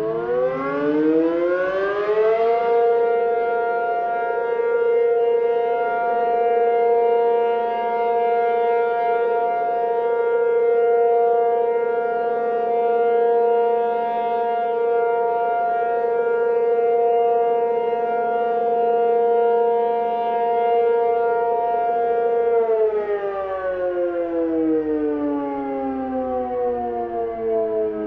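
Tornado warning siren winding up in a rising pitch, then holding one steady, rich note whose loudness swells and fades gently every few seconds. About 22 seconds in, it winds down in a slow falling pitch.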